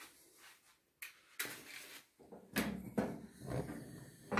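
A match struck against a matchbox to light a gas stove burner, heard as a brief scratching burst about a second and a half in, among a few short knocks and handling sounds.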